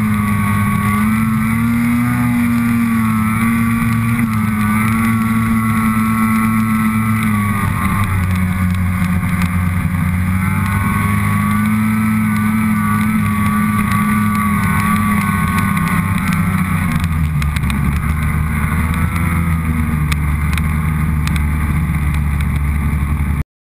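Snowmobile engine running hard as the sled drives across snow, heard close up from on board; its pitch rises and dips with the throttle. The sound cuts off suddenly near the end.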